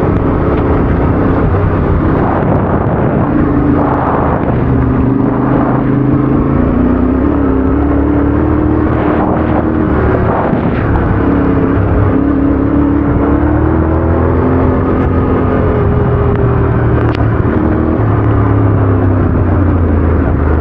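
Yamaha Ténéré adventure motorcycle's engine running under way, its pitch rising and falling with the throttle.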